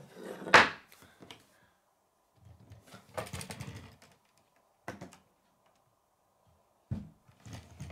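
Plastic K'nex pieces clicking and rattling as the model plane is handled on a wooden table. There is a sharp clack about half a second in, a stretch of rattling around three seconds in, and single knocks near five and seven seconds.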